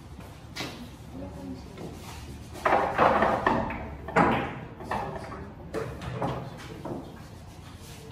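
Pool balls clacking together in several sharp knocks, the loudest cluster about three seconds in.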